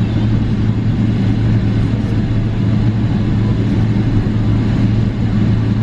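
Steady low drone of cabin noise inside a Boeing 777-300ER on the ground, a constant deep hum under an even rush of air and machinery.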